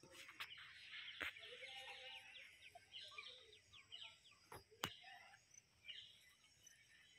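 Faint woodland ambience: birds chirping in rapid, short falling notes, with a few sharp clicks, two of them close together about five seconds in.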